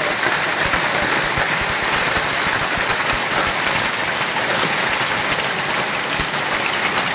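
Heavy hail falling, hailstones hitting the ground and leaves in a dense, steady clatter.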